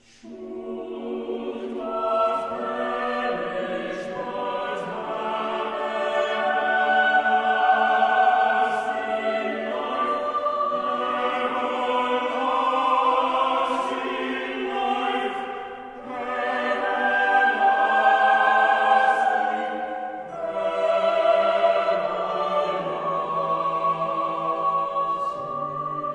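Choral music: a choir singing slow, sustained phrases, starting out of silence and swelling and dipping between phrases.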